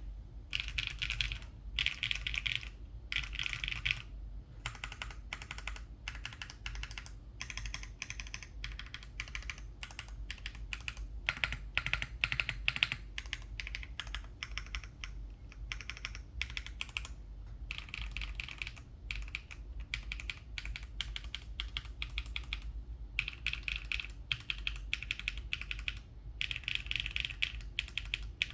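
Continuous typing on a Spectacle 60 custom mechanical keyboard with HMX × Neo Amber switches on an aluminium plate and GMK keycaps. It is a steady stream of key clacks, broken by a few brief pauses.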